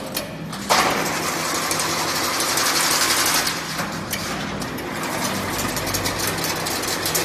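A machine running, with a steady mechanical whir over a low hum and fast, dense clicking. It jumps louder abruptly about a second in.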